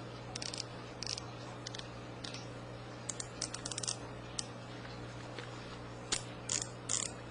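Abu Garcia Oceanfield BG-L baitcasting reel's drag and spool tension knob being turned by hand, giving irregular runs of light clicks with pauses between them.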